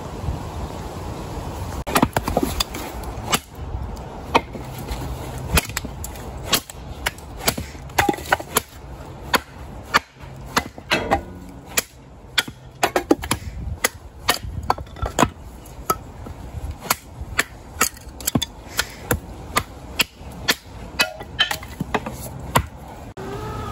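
Hatchet chopping and splitting kindling sticks on a log chopping block: a run of sharp wooden strikes, about one to two a second, starting about two seconds in.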